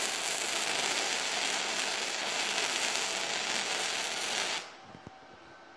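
Firepower FP-200 MIG welder running .030 flux-core wire: the arc gives a steady, dense crackle and sizzle that stops abruptly about four and a half seconds in, followed by a couple of small clicks.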